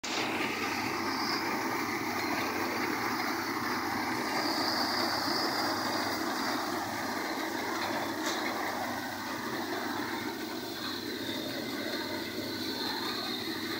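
Tractor-driven Vishwakarma threshing machine running steadily while threshing mustard, a continuous mechanical noise of the machine and its drive.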